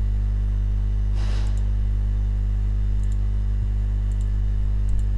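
Steady electrical mains hum, a low buzz with its overtones, picked up on the recording. A short soft rushing noise comes about a second in, and a few faint computer-mouse clicks come later as a wire is placed in the schematic.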